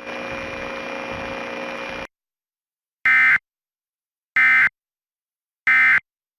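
Emergency Alert System end-of-message signal: three short, identical bursts of buzzy digital data tones, each about a third of a second long and just over a second apart. Before them comes about two seconds of steady hiss with a faint hum, which cuts off abruptly.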